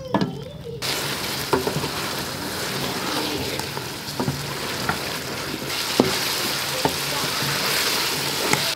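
Chicken and tomato sizzling in oil in a metal pot while a wooden spoon stirs them. The steady frying hiss starts abruptly about a second in, and the spoon knocks against the pot every second or so.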